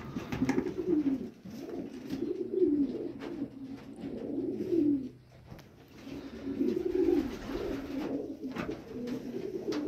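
Homing pigeons cooing in their loft, several birds calling over one another in repeated low coos, with a short lull about five seconds in.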